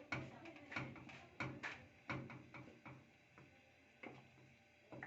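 A stirring utensil knocking and scraping against the pot as thick pastry cream is stirred to melt in butter. The knocks come about two a second for the first three seconds, then thin out.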